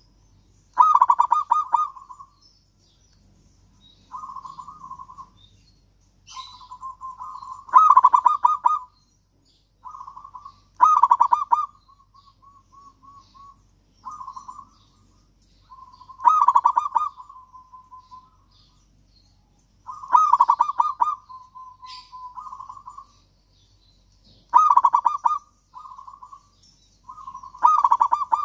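Zebra dove singing: phrases of rapid, stuttering cooing notes repeated every few seconds, some loud and some soft, a few trailing off in a quieter run of even notes.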